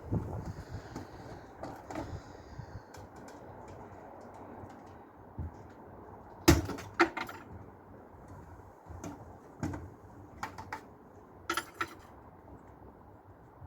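Scattered knocks and clanks of dishwasher parts being handled while the machine is dismantled, the loudest about six and a half seconds in, with a quick rattle of clicks near the end.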